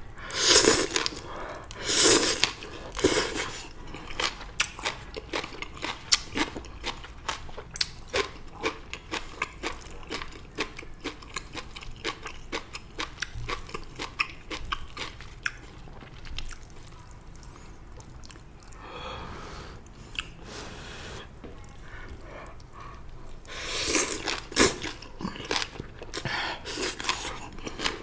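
Close-up eating: a person biting into and chewing stir-fried morning glory (water spinach), with many small crunches as the stems are chewed. There are louder bites near the start and again near the end.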